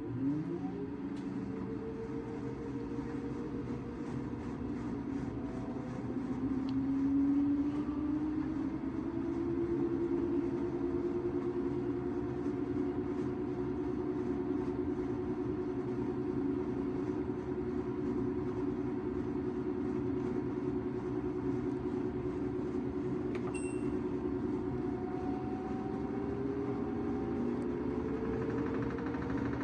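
LG AiDD direct-drive washing machine's drum speeding up for a spin: the motor's whine rises in pitch, holds steady, then starts rising again near the end, over a steady rumble.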